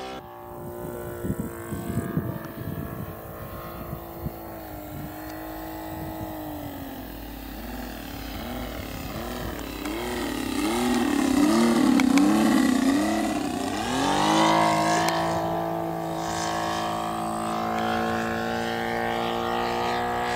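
Saito FA-450R3 three-cylinder four-stroke radial engine of a quarter-scale RC Waco biplane running steadily in flight, swelling to its loudest about halfway through with its pitch wavering, then settling back to a steady note.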